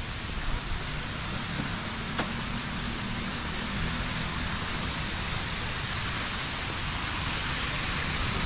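Steady outdoor ambience: an even hiss with a low rumble underneath, and one faint click about two seconds in.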